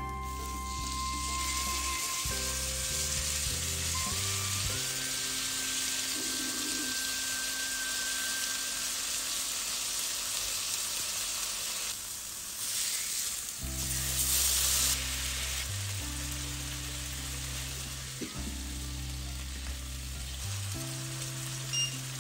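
Marinated paneer sizzling as it fries in a nonstick pan: a steady hiss that grows louder for a couple of seconds about halfway through.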